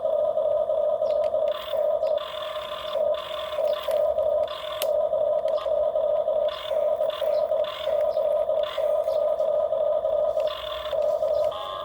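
Small electric gear motors of radio-controlled toy construction vehicles whining in short runs, starting and stopping about every second as the controls are worked.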